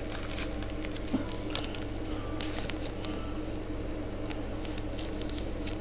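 Light handling noise of trading cards and their packaging: scattered soft clicks and rustles over a steady low hum.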